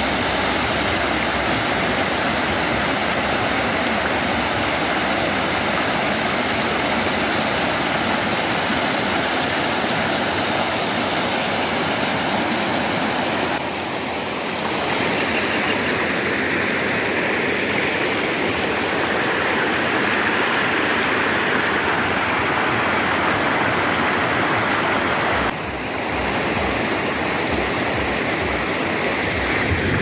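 Small waterfall rushing steadily as water pours through a gap in a stone weir and runs down over granite rock slabs.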